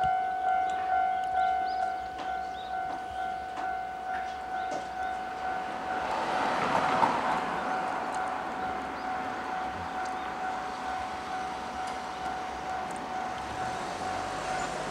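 Japanese level crossing warning bell ringing in a steady, evenly repeating electronic ding, about one and a half strokes a second. From about six seconds in, the rumble of an approaching 103-series four-car electric train swells up beneath it.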